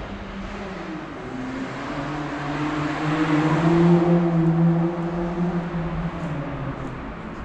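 A car passing on a nearby road: its engine hum and tyre noise build to the loudest point about four seconds in, then fade away.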